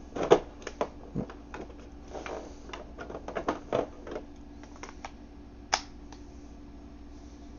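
Irregular plastic clicks and knocks from a King Arms PDW 9mm SBR airsoft gun being handled and lifted out of its foam box insert, the loudest about a third of a second in, with one sharp click just before six seconds.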